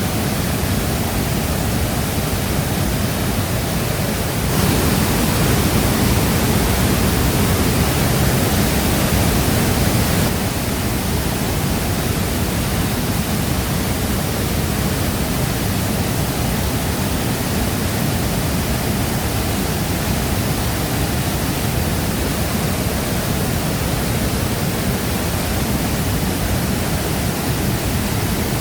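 Shifen Waterfall's water crashing down in a steady, dense rush, a little louder for about five seconds from around four and a half seconds in.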